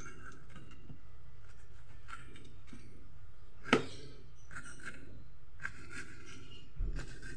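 Small kitchen knife slicing a raw banana blossom into thin shreds on a plastic cutting board: a run of short, crisp cutting scrapes. A sharp knock of the blade on the board comes just under four seconds in, and a duller thump near the end.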